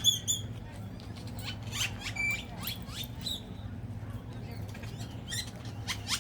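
Unseen birds calling repeatedly from trees overhead: many short, high chirps and quick rising squeaky notes, with a louder chirp at the start.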